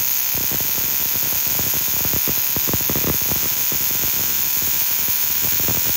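Electronic buzz-coil replacement ignition unit firing a rapid, irregular stream of high-tension sparks across a spark plug gap, heard as a steady crackling buzz over a high hiss. Its spark rate depends on the supply voltage, here just under 7 volts.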